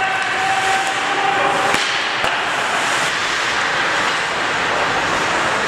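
Ice hockey play in an echoing rink: a steady wash of skates scraping the ice and players moving. A held shout runs through the first couple of seconds, and there is a single sharp crack about two seconds in.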